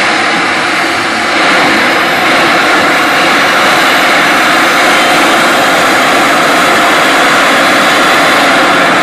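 The Pratt & Whitney jet engine of the Chevy Flashfire jet truck running with a steady, loud roar. It gets louder about a second and a half in, as it builds power before the afterburner lights.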